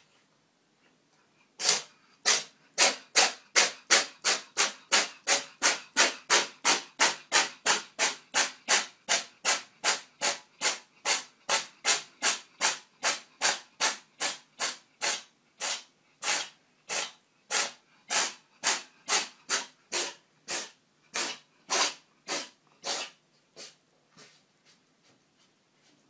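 A cat sneezing over and over in a long fit: about two short, breathy sneezes a second, slowing a little and growing fainter, then dying out near the end.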